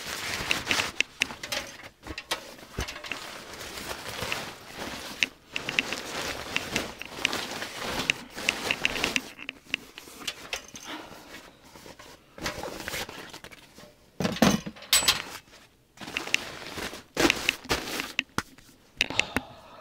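Camping gear being handled: clothing and gear rustling, with irregular knocks and clatters as a storage box is worked over and a small portable gas heater is lifted and set down. Near the end, breath is blown into cupped hands.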